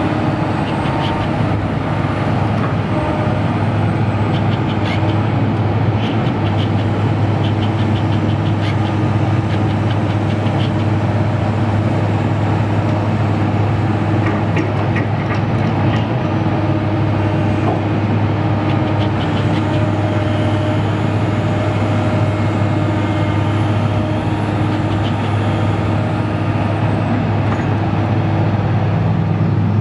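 2004 Link-Belt 330 LX long-reach excavator's diesel engine running steadily while the boom and arm are worked, with light clicking from the machine now and then over the steady engine hum.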